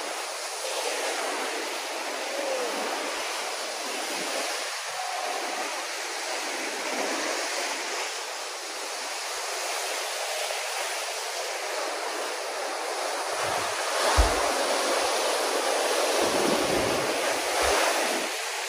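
Ocean swell breaking against a rock ledge and washing back as white water, a continuous rushing surf that grows louder for a few seconds near the end. A brief thump stands out about fourteen seconds in.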